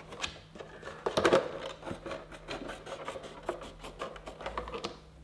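Scissors cutting through a plastic 2-litre milk bottle: a run of quick snips, with a louder cluster about a second in.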